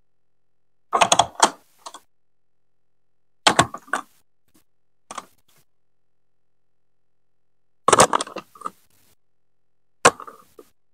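Chunky plastic building blocks and plastic marble-run track pieces being set down and pressed together onto a baseplate: five short bursts of clicking and clacking.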